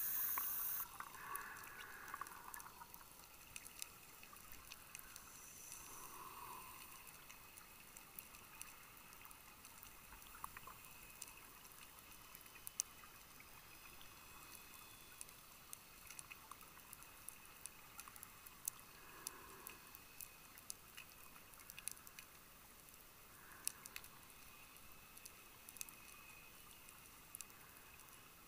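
Scuba diver breathing underwater: a short loud regulator hiss of an inhale at the start, then exhaled bubbles gurgling in bursts every few seconds. Scattered sharp clicks run underneath throughout.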